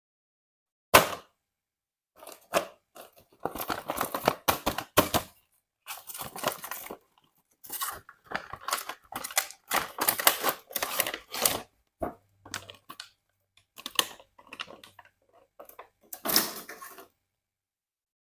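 Toy packaging being opened and handled: irregular tearing and crinkling of packaging, with sharp clicks from plastic parts, in short bursts separated by silences.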